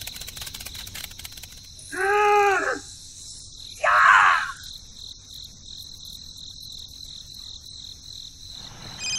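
Crickets chirring steadily as a high, even drone. About two seconds in, a short pitched call rises and falls, and about four seconds in a brief rough burst follows.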